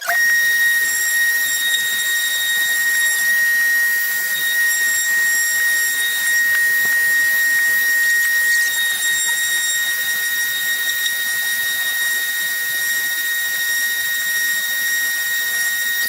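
A woodworking power tool running at a steady, unchanging speed with a high whine over hiss.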